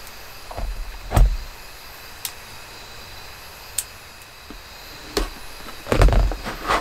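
Scattered knocks and clicks, the loudest about a second in and several together near the end, over a faint steady high-pitched hum.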